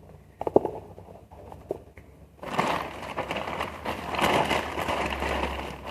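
A few light taps and clicks, then from about two and a half seconds in a dense crinkling of plastic wrapping being handled.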